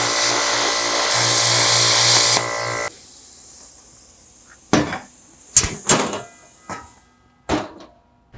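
Lincoln Tomahawk 375 Air plasma cutter cutting 1/8-inch carbon steel: a loud, steady hiss and buzz of the arc for about three seconds that cuts off suddenly, followed by a fainter hiss for a few seconds more. Then several sharp metal clanks and rattles as the cut steel sheet is lifted and handled.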